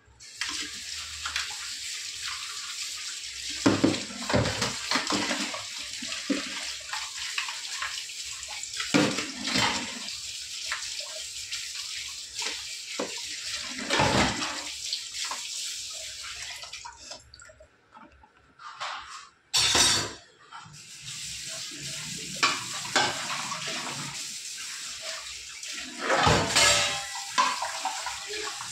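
Kitchen tap running into a sink while stainless-steel dishes are washed and rinsed, with clatters of metal plates and vessels knocking together every few seconds. The water drops away briefly a little past halfway, then runs again.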